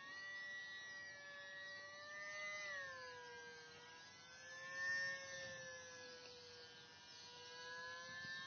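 RC Icon A5 seaplane's motor and propeller whining overhead in flight, a faint steady tone that drifts slowly up and down in pitch and dips about three seconds in.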